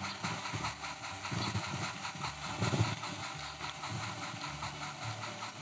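Steam locomotive chuffing in a quick, steady rhythm as the train runs, with a louder swell a little before halfway.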